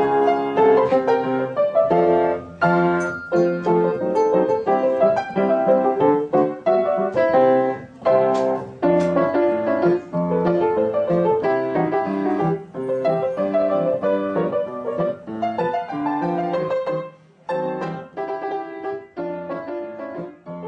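Solo piano music, a busy tune of quickly struck notes, growing softer over the last few seconds.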